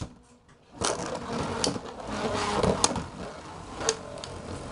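Two Beyblade spinning tops whirring together in a plastic stadium, with a steady buzz. Sharp clicks come about once a second as the tops strike each other and the stadium.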